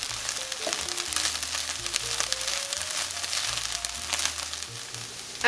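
Soy crumbles frying in hot oil in a pan: a steady sizzle full of fine crackles, with background music playing a held, stepping melody and bass line underneath.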